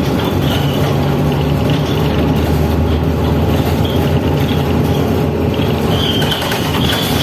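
Mercedes-Benz Citaro diesel city bus heard from inside the passenger cabin while under way, its engine running steadily under road and body noise. A thin high whine comes and goes over it.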